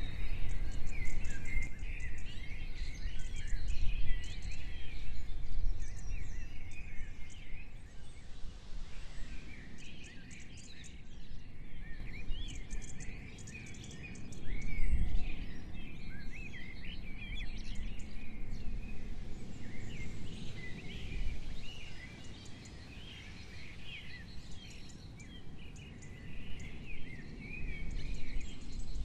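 Many small birds chirping and singing together in quick, overlapping calls, over an uneven low rumble.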